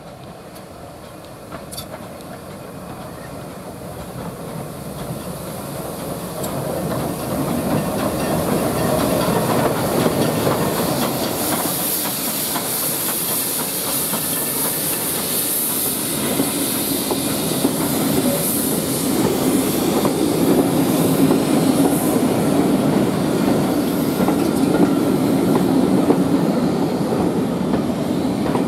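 LMS 4F 0-6-0 steam locomotive 44422 and its coaches passing close by, growing steadily louder over the first ten seconds or so. Midway a hiss of steam rises as the engine goes by, then the coaches follow with a rumble and the clickety-clack of wheels over rail joints.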